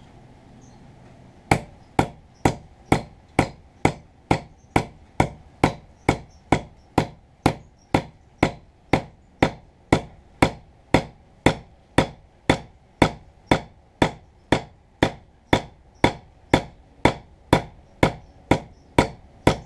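Hammer tapping a wedge down into the top of a wooden hatchet handle, spreading the wood to lock the head on: steady light taps, about two a second, starting a second and a half in.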